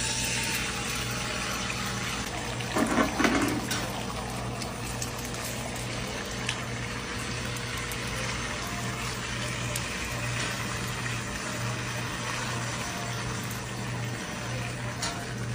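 A steady watery rushing noise over a low steady hum, with a louder burst about three seconds in.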